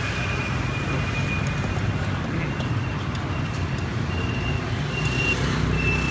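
Street traffic noise with engines running steadily, and a short high-pitched beep repeating about once a second from about halfway in.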